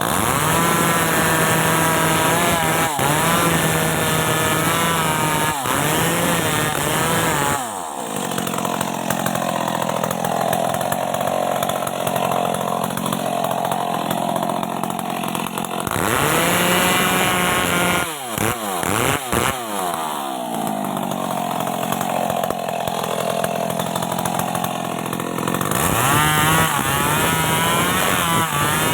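Stihl MS 381 two-stroke chainsaw running at high revs. Its pitch holds steady at times, then twice wavers and sags for several seconds, as when the chain is cutting into wood. In between, the revs dip briefly a few times.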